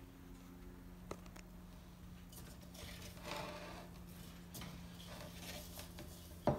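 Breadcrumbs being pinched and sprinkled by hand onto raw chicken pieces: soft rustling in two short stretches over a steady low hum, with a faint click about a second in and a sharp knock near the end.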